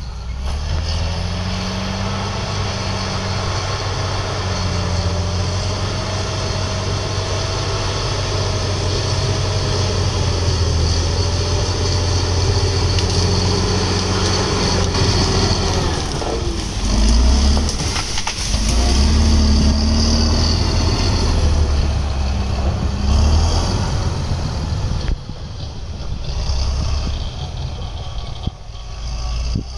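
Crawler bulldozer's diesel engine running under load as the machine pushes soil, with its pitch shifting and rising and falling a few times past the middle.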